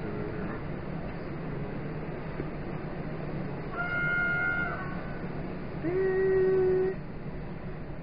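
EN57 electric multiple unit running with a steady low rumble, sounding its horn twice: a higher-pitched blast about four seconds in, then a louder, lower blast that slides up in pitch at its start, holds about a second and cuts off.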